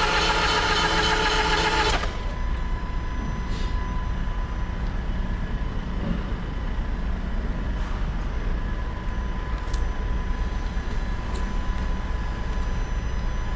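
The starter motor of a Land Rover Discovery Sport 2.0 diesel cranks the engine without it catching, then cuts off abruptly about two seconds in: the engine will not start. A steady low rumble remains afterwards.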